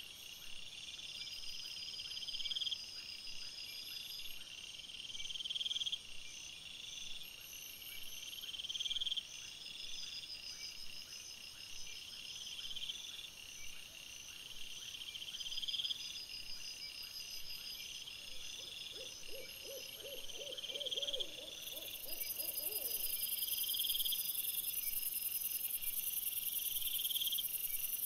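Night insects, crickets chirring in repeating phrases that swell about every second and a half. About two-thirds of the way through comes a short run of rapid low pulses, and near the end a steady high hiss joins in.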